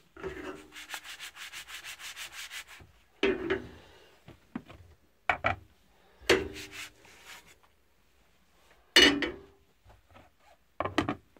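Cookware handling while making crepes: a quick, even scraping, about six strokes a second, for the first couple of seconds, then five separate knocks and clatters of pan and lid being set down and moved.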